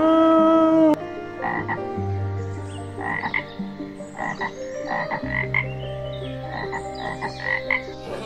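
Frogs croaking: short croaks repeating irregularly over a steady low hum, after a held pitched call that cuts off about a second in.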